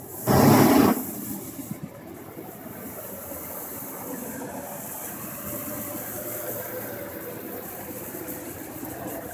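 A jeep engine running steadily, with a loud rushing burst of under a second near the start.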